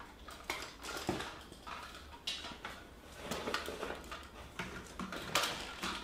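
Irregular light clicks, scrapes and rustles of a spline roller pressing rubber spline into a window-screen frame's channel over fibreglass insect screen, with the loose spline being handled.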